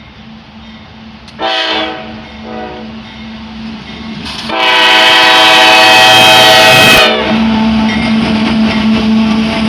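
Kansas City Southern diesel locomotive's horn sounding at a grade crossing: a short blast, a fainter short one, then a long loud blast that cuts off about seven seconds in. The crossing's bells ring throughout, and the locomotives then rumble past at close range.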